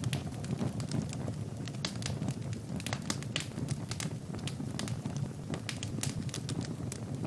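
Wood fire burning in a fireplace: crackling, with frequent sharp pops and snaps over a low, steady rumble of flame.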